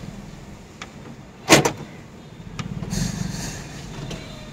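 Car cabin noise: a steady low rumble, with one sharp knock about a second and a half in and a louder rush of rumble and hiss about three seconds in.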